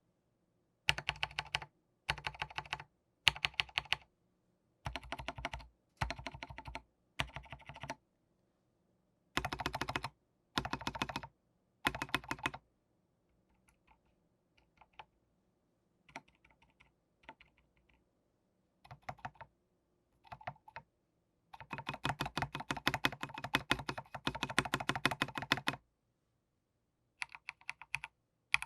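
Rama Works Kara 60% mechanical keyboard with Gateron Cap Milky Yellow switches being typed on. Its Durock V2 stabilizers are Holee-modded and lubed with Krytox 205g0, and no longer rattle. Short bursts of quick keystrokes give way to a few faint presses in the middle, then a longer run of fast typing, in a case the owner finds hollow-sounding.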